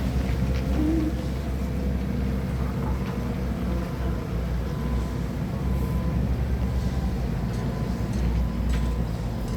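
Forklift engine running steadily at a low rumble, with a few faint ticks over it.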